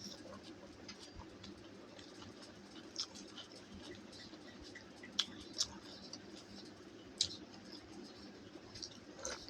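Eating sounds of a meal of dal bhat, mashed potato and salad: quiet chewing and mouth noises with scattered sharp clicks, the sharpest a little past halfway, over a steady low hum.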